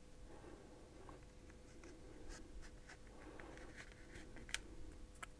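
Faint scraping of a plastic pick prying along the edge of an iPod Touch 5th generation's front panel, with scattered small clicks and cracks as the plastic gives at the metal housing.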